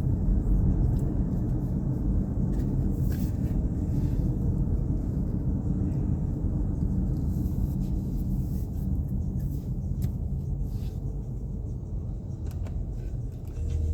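Steady low road and engine rumble heard inside the cabin of a Nissan Pathfinder on the move.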